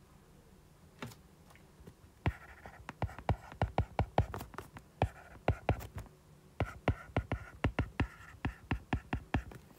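Stylus tapping and scratching on a tablet's glass screen during handwriting: a quick, irregular run of light ticks that starts about two seconds in.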